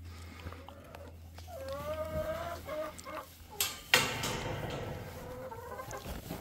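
Domestic hens clucking, with one drawn-out, wavering call between about one and a half and three seconds in. A couple of sharp knocks come a little past three and a half seconds, followed by rustling.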